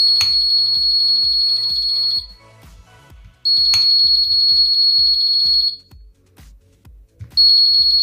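Buzzer of a homemade 433 MHz wireless doorbell sounding a steady high-pitched beep when the doorbell button is pressed. It beeps three times: two beeps of about two seconds each, and a third that starts near the end. A soft electronic beat plays underneath.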